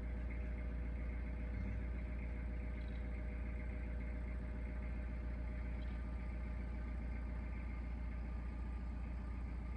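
Narrowboat's diesel engine running steadily at low revs, an even low hum.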